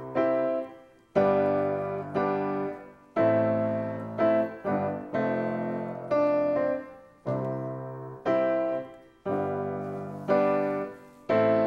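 Grand piano playing slow chords, each struck and left to ring and fade, about one a second, now and then with a quick second chord just after.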